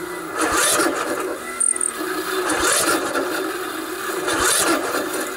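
The electric starter cranks a 16 hp Briggs & Stratton OHV single-cylinder engine slowly and with effort. It labours over a compression stroke about every two seconds and the engine never fires. The engine is struggling against too much compression, which the owner puts down to valves out of adjustment.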